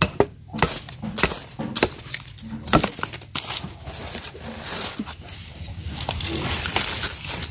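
Crunching and crackling as a bamboo shoot is pried loose at its base with a machete, with dry bamboo sheaths and leaves rustling and irregular sharp clicks throughout.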